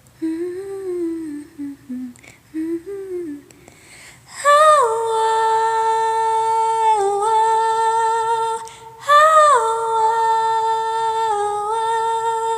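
A voice humming a few short wordless melodic phrases, then two long held high notes, each sliding down into pitch at its start.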